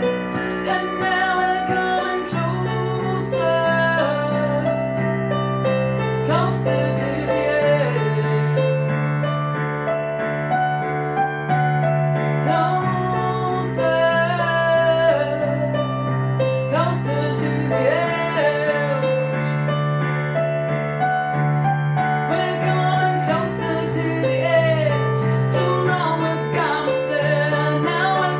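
A woman singing while playing a digital piano keyboard, with held chords changing every few seconds under her voice.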